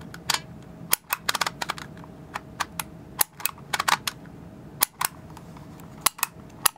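A new, cheap plastic Dymo handheld embossing label maker at work. Its character wheel clicks as it is turned, and the handle snaps as it is squeezed to emboss each letter into the tape. The clicks are sharp and irregular, some single and some in quick runs.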